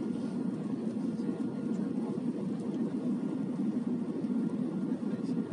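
Steady cabin noise of an Airbus A320 in flight, heard from a window seat: an even, low drone of engines and airflow that does not change.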